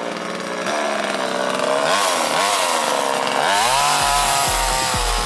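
Chainsaw running as it cuts palm fronds, its pitch dipping and rising as it revs. Near the end a steady low beat of background music comes in, about two thumps a second.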